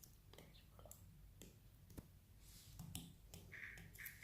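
Faint, irregular clicks of an Apple Pencil's hard plastic tip tapping on an iPad's glass screen.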